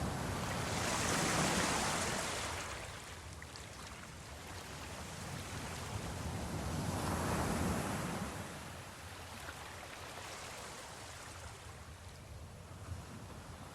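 Ocean waves washing in, with two surges of rushing water: one near the start and one about halfway through, each fading back into a softer wash.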